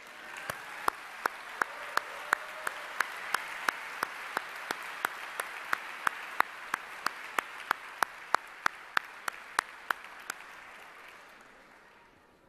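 Audience applause, with one person clapping right at the lectern microphones: sharp, loud claps at about three a second over the crowd's clapping. The crowd's applause swells at the start and fades out near the end.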